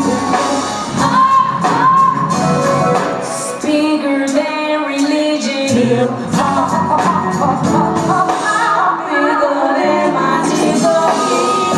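Live soul band playing with a woman singing, heard from the audience in a large hall: sung lines over keyboards, guitar and drums with a steady beat.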